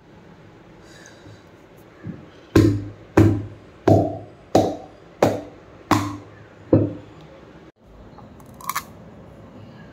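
Seven heavy, evenly spaced thuds about two-thirds of a second apart, each dying away quickly, followed by a short double click.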